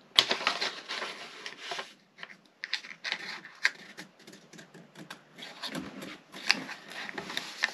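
A sheet of paper rustling and crinkling in irregular scratchy strokes as hands press and crease it against painted wooden framing to shape a template. There is a sharp tap just after the start.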